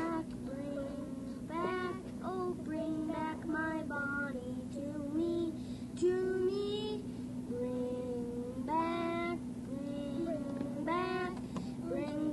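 Two young boys singing a song together, phrase after phrase, over a steady low hum.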